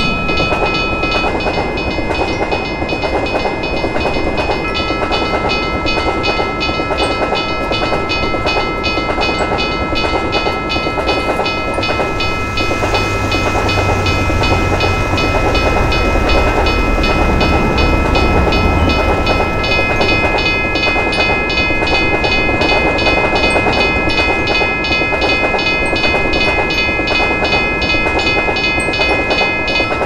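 Railroad crossing bell ringing rapidly and steadily while trains pass, over the rumble and clickety-clack of train wheels on the rails; the low rumble swells in the middle.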